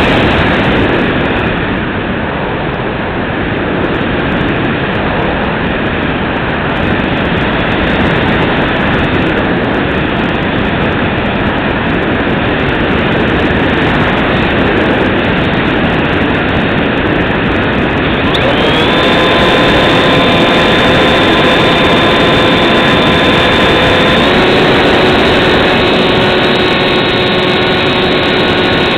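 Bixler 2 RC plane heard from its onboard camera in flight: steady loud rushing of air over the microphone, with the electric motor and propeller's steady whine rising out of it about two-thirds of the way through and changing pitch once a few seconds later.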